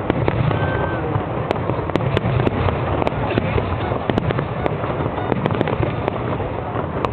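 Fireworks display going off: a continuous barrage of booms, bangs and crackles, with many sharp reports a second over a steady rumble.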